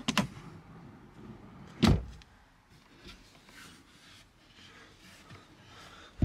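Wooden cabinet drawer and storage-bench lid in a truck camper being handled: clacks as the drawer is pulled, a solid thump about two seconds in, then a few light knocks as the hinged lid is lifted, and a sharp knock at the end.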